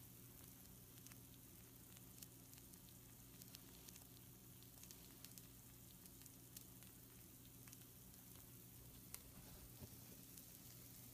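Pizza rolls faintly sizzling on a hot baking sheet: a soft steady hiss with many small scattered pops and crackles.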